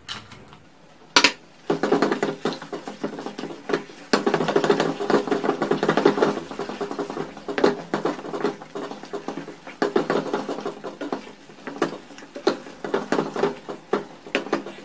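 Wooden spatula stirring and scraping thick semolina halwa in a nonstick pan: a continuous run of wet scrapes and taps. A sharp knock comes about a second in.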